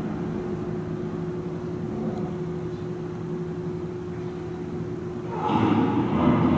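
Hippopotamuses moving in an indoor pool over a steady hum. About five seconds in, a louder, noisy sound from the hippos starts and carries on.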